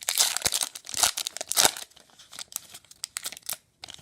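A trading card pack wrapper being torn open and crinkled by hand, loudest in the first couple of seconds, then lighter rustling and clicks as it is pulled apart.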